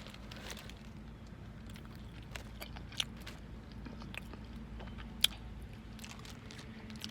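A person chewing and eating food close to the microphone, with scattered faint mouth clicks and two sharper clicks about three and five seconds in.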